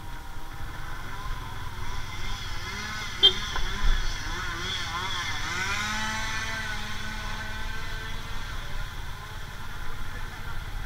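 A motorcycle's engine running steadily under way, while oncoming cars and a motorcycle pass close by, their engine sound falling in pitch as they go past. There are two brief knocks about three and four seconds in.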